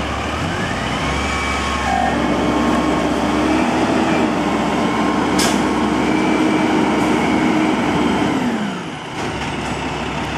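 Amrep automated side-loader garbage truck's diesel engine revved up by hand over the first second or so and held high and steady for about six seconds, as the driver does to run the truck's hydraulics, then dropping back toward idle near the end. A brief sharp sound cuts in about halfway.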